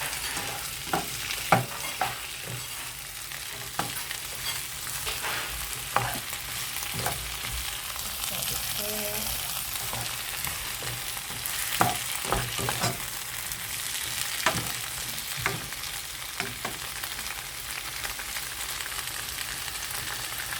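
Onion and yellow bell pepper sizzling as they stir-fry in a pan, with irregular clicks and scrapes of the stirring utensil against the pan.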